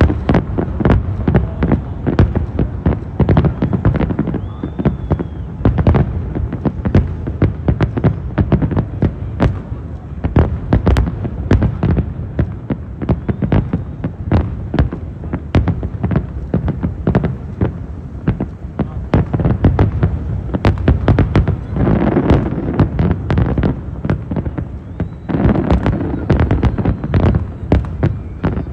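Fireworks grand finale: a rapid, continuous barrage of aerial shell bursts, sharp cracks and booms overlapping with no break. The barrage grows denser twice in the last third.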